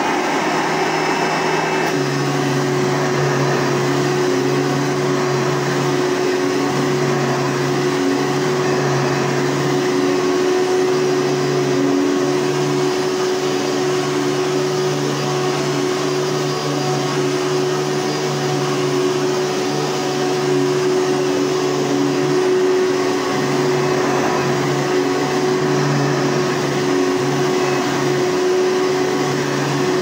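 Hoover Soft and Light upright vacuum cleaner running steadily, its motor giving a constant tone over a hiss of air, while it is pushed back and forth over carpet.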